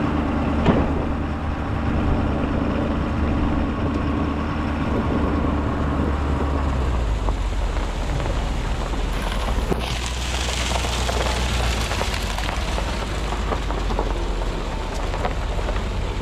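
Truck engine running steadily under a hiss of tyre and road noise. The engine note changes about seven seconds in, and the hiss grows louder from about ten seconds in.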